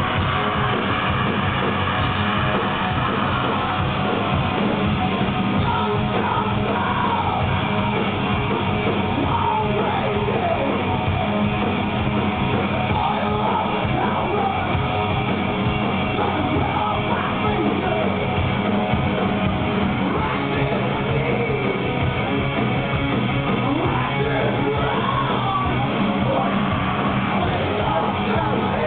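Live stoner rock band playing loud: distorted electric guitars, bass and drums with a male singer shouting and singing over them.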